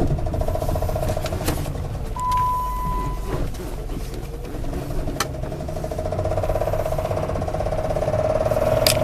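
2007 Dodge Charger's 3.5 L V6 running with a fine, rapid pulse, the engine the owner says has a top-end knock. About two seconds in, a steady beep sounds for about a second, and there are a few sharp clicks.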